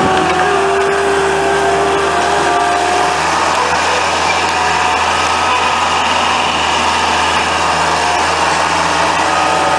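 Skid-steer loader's engine running steadily as it works the soil, with a higher whine over it for the first few seconds.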